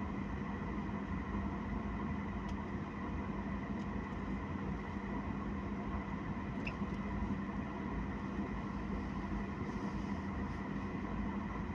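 Steady jet airliner cabin noise: a constant hum with a low drone from the running aircraft's engines and air systems. It holds level throughout, with one faint click about two-thirds of the way through.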